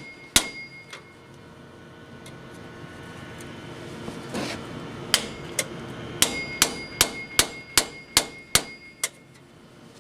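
Hammer blows on the steel wheel bearing assembly of a Chevrolet Silverado pickup, done to knock the bad bearing loose: one strike, a pause, then a rapid run of about a dozen ringing metal strikes from about four seconds in.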